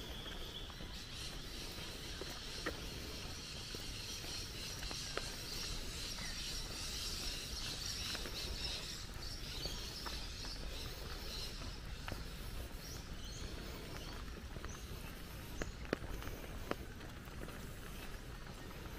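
Bushland ambience: a steady high-pitched chorus of wildlife that swells in the middle and fades toward the end, with a few sharp footstep clicks on the track.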